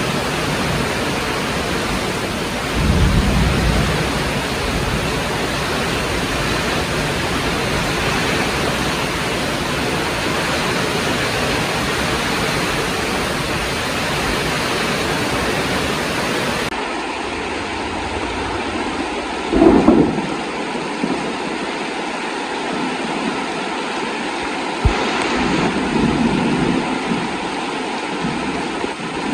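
Heavy rain falling steadily, with a low rumble of thunder about three seconds in. Past the middle the rain sound changes abruptly to a thinner hiss, and a short, loud low rumble comes around twenty seconds in.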